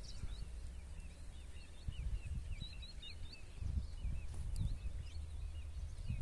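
Small birds chirping in quick, repeated short notes, over a low, fluctuating rumble of wind on the microphone.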